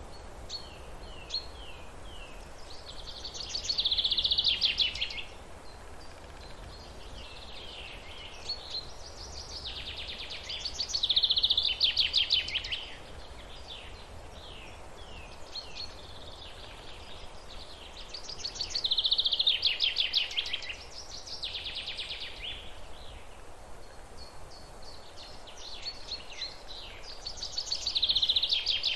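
Forest birdsong: a songbird sings the same two-to-three-second phrase four times, about eight seconds apart. Each phrase is a few short down-slurred notes running into a fast high trill. Quieter chirps fall between the phrases, over a steady background hiss.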